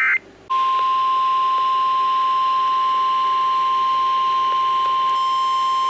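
NOAA Weather Radio warning alarm tone: a single steady high 1050 Hz tone that begins about half a second in, just after the tail of a buzzy EAS/SAME data burst, signalling that a warning message follows.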